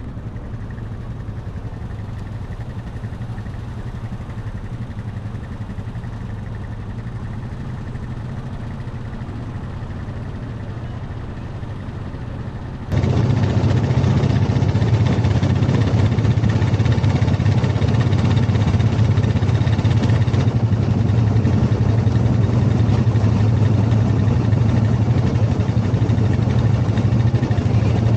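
ATV engine running steadily with a low, even hum. About thirteen seconds in it suddenly gets much louder.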